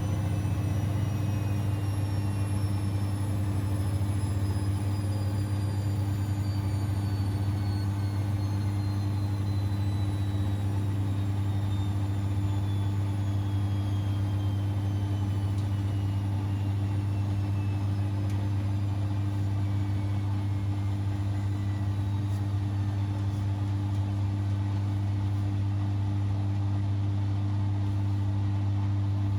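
Siemens Extraklasse XLS 140 A washing machine running with a steady low hum, and a faint high whine that falls slowly in pitch over most of the stretch.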